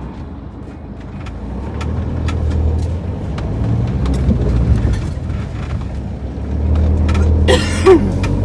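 Camper van's engine and road noise heard from inside the cab while driving, a steady low rumble that swells and eases several times. Scattered light clicks sound over it, and there is a short louder noise near the end.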